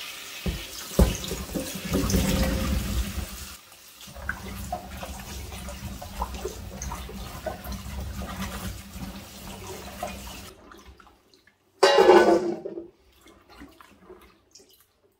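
Tap water running into a sink as chillies and tomatoes are rinsed under it, stopping about ten seconds in. A short loud sound follows about two seconds later.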